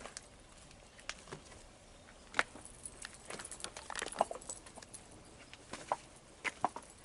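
Footsteps on loose rock and gravel: irregular crunches and small stone clicks, busiest in the middle of the stretch.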